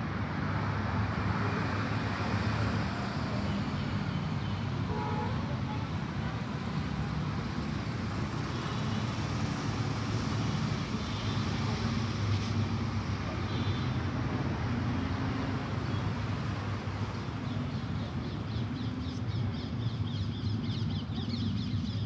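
Steady outdoor street ambience: a continuous low rumble of road traffic, with a few faint high chirps in the middle.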